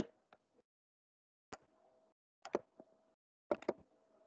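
A few sharp computer mouse clicks, first a single one, then quick pairs about a second apart.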